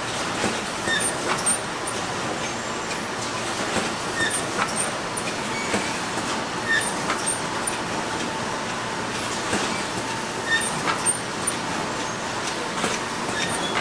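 Ice cream bar production line running: a steady machine noise with a faint high hum and frequent irregular clicks and clatters from the conveyor that carries the frozen bars by their sticks.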